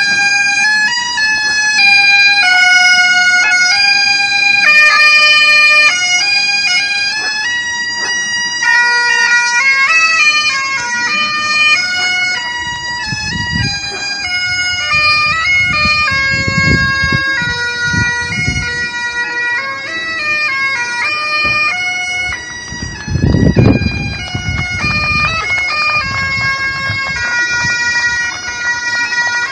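Bagpipes playing a tune, held notes stepping from one to the next. Bursts of low rumble come and go around the middle, with the loudest one about two-thirds of the way in.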